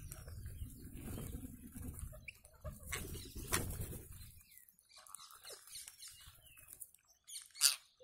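A flock of rose-ringed parakeets giving short scattered chirping calls, with brief sharp flurries of wing flapping; the loudest is a sharp burst near the end. A low rumble underlies the first half.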